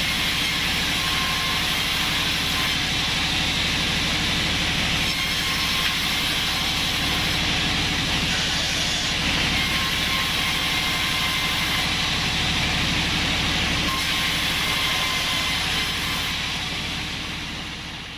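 Band sawmill running with a steady, loud mechanical noise that fades out near the end.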